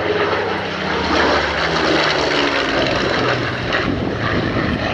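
Merlin-engined Second World War fighter's piston engine flying past, loud, its note dropping as it goes by.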